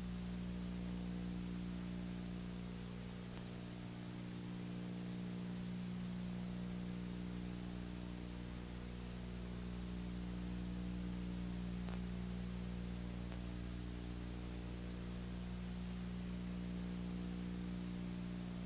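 Steady electrical mains hum with its overtones under an even hiss. There is no sound from the fishing scene.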